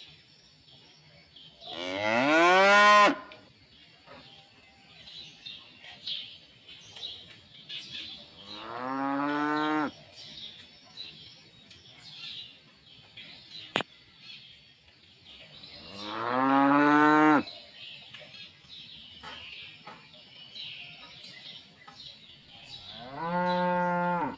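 Cows mooing: four long moos about seven seconds apart, each rising in pitch as it starts, the first the loudest. Faint high chirping carries on between them.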